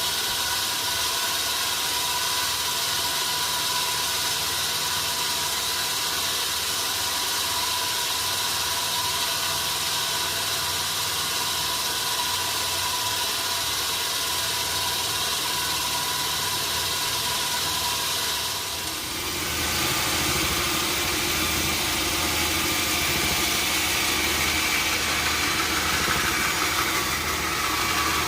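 Sawmill machinery running steadily, an engine-like hum with a faint high whine. About two-thirds of the way through the sound shifts and a deeper rumble sets in.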